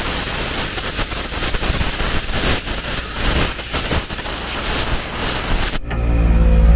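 Compressed air hissing out of a blow-gun attachment on an ARB air compressor, blasting sand out of a car seat. About six seconds in the air stops and the compressor's motor is heard humming on its own.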